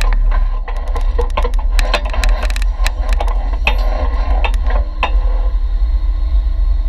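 Off-road vehicle crawling down a rocky trail: a steady low engine rumble, with frequent sharp knocks and rattles as the tyres roll over loose rock and the body jolts. The knocks thin out after about five seconds.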